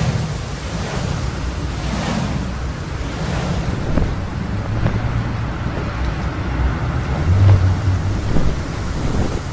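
Rushing wind sound effect with a deep low rumble, swelling in a few whooshes over the first few seconds and rumbling heavier near the end.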